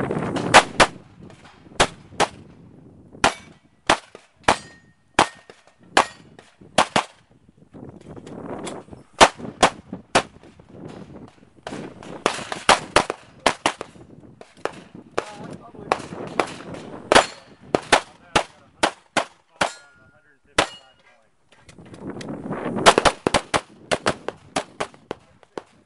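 Pistol fire in a practical-shooting course of fire: sharp shots, mostly in quick pairs, fired in strings broken by short pauses. There is a longer lull about twenty seconds in, then a last fast string.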